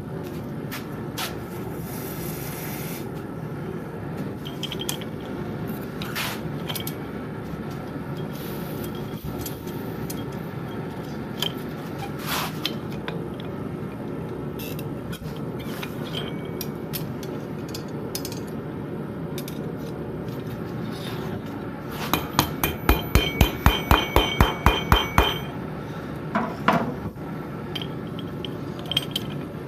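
Blacksmith's hammer striking metal on an anvil: a rapid run of about fifteen ringing blows near the end, with scattered single clinks of tools before it. A steady low rumble runs underneath.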